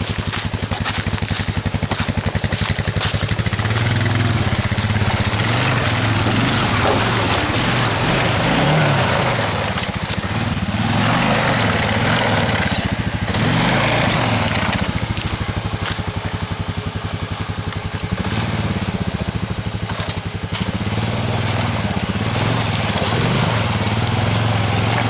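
Arctic Cat 454 ATV engine running under load off-road, its revs rising and falling again and again as the throttle is worked.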